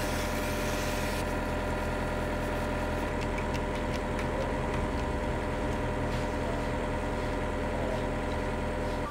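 An engine idling steadily, a constant low running hum with no change in speed.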